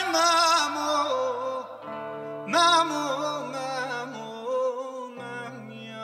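A man singing a Kurdish folk klam in long, heavily ornamented, wavering phrases, a new phrase swelling in about two and a half seconds in, over held acoustic guitar notes.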